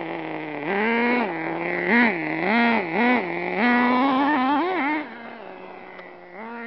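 Traxxas Nitro Stampede RC truck's small two-stroke nitro engine revving up and down in a series of quick throttle bursts, then quieter about five seconds in as the truck drives off.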